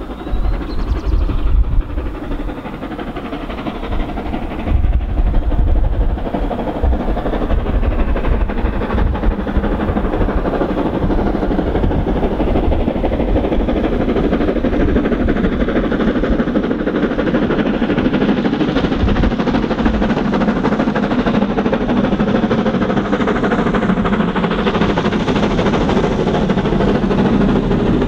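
BR Britannia class 4-6-2 steam locomotive 70013 Oliver Cromwell working hard as it accelerates a train, its two-cylinder exhaust and running noise growing steadily louder as it approaches.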